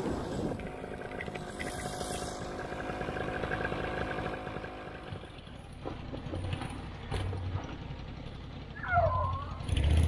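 Paramotor trike's Vittorazi Moster 185 two-stroke engine running at a steady speed. About halfway through it becomes much fainter, and wind buffets the microphone.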